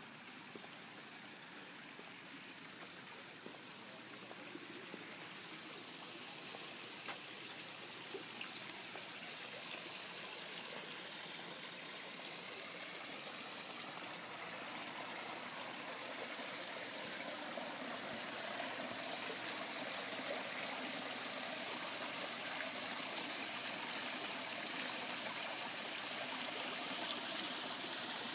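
Water running over rocks in a small garden stream and waterfall, a steady rush that grows gradually louder.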